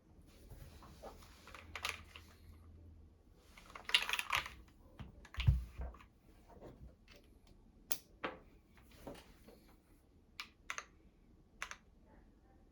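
Mechanical keyboard with Gateron Minks switches and GMK keycaps, keys being pressed: scattered single keystrokes and a short quick burst about four seconds in, with a deeper thud a little later.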